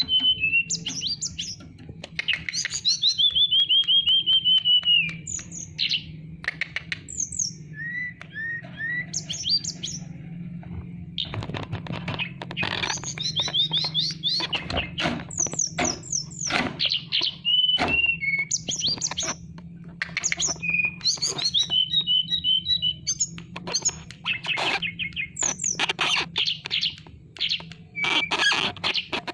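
Tledekan gunung songbird singing: loud, varied whistled phrases and chirps, among them quick runs of notes that slide down in pitch, with a steady low hum underneath.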